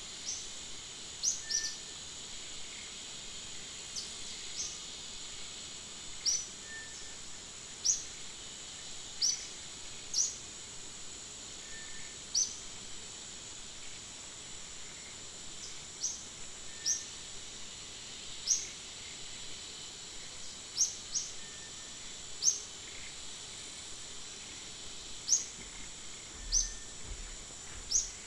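Forest ambience in the rain: a steady hiss of rainfall under a constant high-pitched insect drone, with short rising chirps every second or two.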